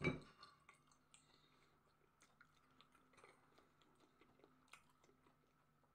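Faint chewing of a mouthful of food: soft, scattered mouth clicks over a quiet room with a faint steady hum.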